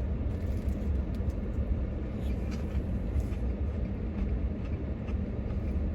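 Steady low rumble, like a vehicle idling, with a few faint scattered clicks.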